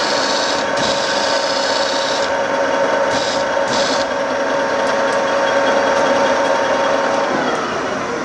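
Lion 20 x 40 inch gap-bed lathe running under power, its geared drive giving a steady whine. A higher rasping sound comes and goes several times in the first few seconds. Near the end the whine falls in pitch as the drive slows.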